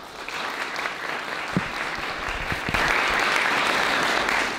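Audience applauding, growing louder about halfway through.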